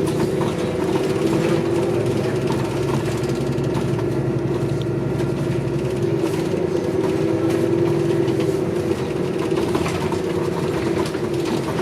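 City transit bus heard from inside the passenger cabin: a steady engine drone that shifts a little in pitch about halfway through, with light rattles and clicks from the bus body.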